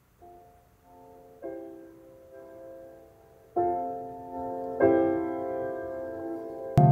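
Soft piano music: slow held chords that come in one after another and grow louder.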